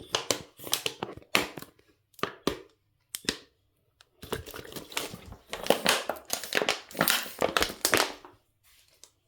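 Plastic crinkling and crackling in irregular bursts as a thin plastic water bottle is handled and squeezed.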